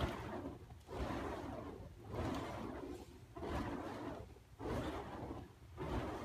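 Two burning fire poi whooshing as they are swung, a rush of flame noise that swells and fades about once a second.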